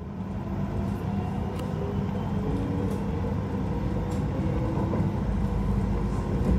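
Electric suburban train running at speed, heard from inside the carriage: a steady low rumble with a faint whine and occasional sharp clicks.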